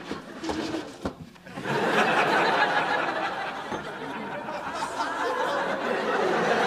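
A paper bag rustles briefly, then a studio audience bursts into sustained laughter about two seconds in.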